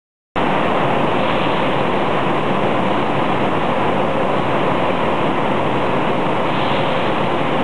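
Steady machinery noise of an IQF tunnel freezer line running on cooked rice, a constant even rush that starts abruptly about a third of a second in.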